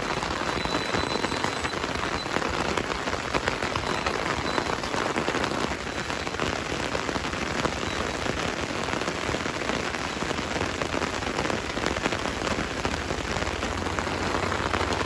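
Heavy rain falling steadily, a continuous hiss of drops striking the ground and nearby surfaces.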